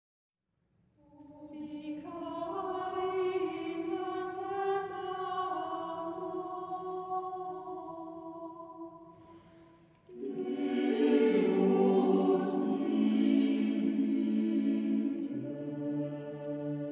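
Mixed choir singing slow, held chords in harmony. One phrase begins about a second in and fades just before the middle, then a second, louder phrase follows, with the low voices coming in on a deeper note near the end.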